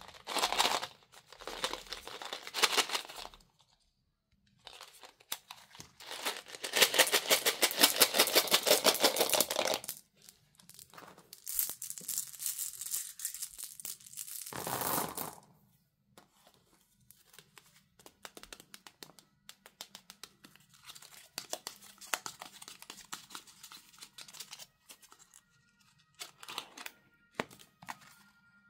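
Candy packaging being opened by hand: cardboard and foil wrappers tearing and crinkling in several loud stretches, the longest about a third of the way in. Lighter rustling and small clicks follow.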